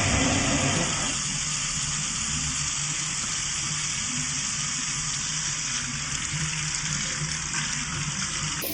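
A steady rushing noise of running water.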